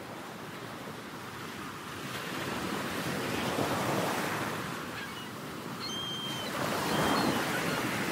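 Ocean surf: waves washing in as a steady hiss, swelling about four seconds in and again near seven seconds, with a few faint short high chirps near the end.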